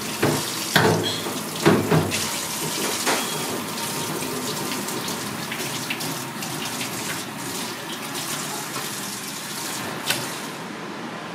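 Water running from a sink's faucet hose over a trumpet conch being rinsed in a stainless steel sink, a steady splashing hiss. Several sharp knocks come in the first two seconds and one more near the end.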